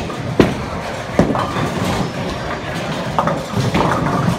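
Bowling alley din: sharp knocks and clatter of balls and pins over a steady rumble of noise.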